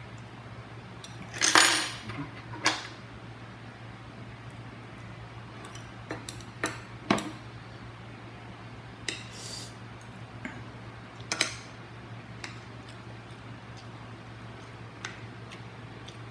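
Spoon and fork clinking and scraping against a plate while eating: about eight scattered sharp clinks, the loudest about one and a half seconds in, and a short scrape near the middle.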